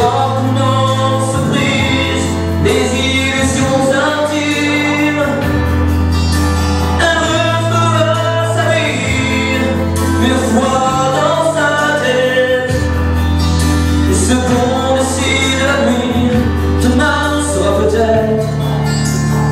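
A young man singing a song into a handheld microphone over a musical accompaniment, with a bass line that moves to a new note every second or two.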